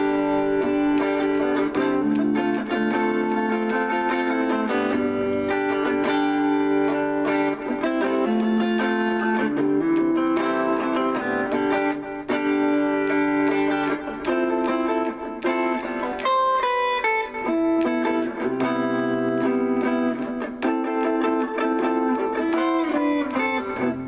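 Electric guitar on a clean amp tone, improvised chords left to ring with single-note melodic phrases in an easy-listening, light-jazz style, with a short run of higher notes about two-thirds of the way through.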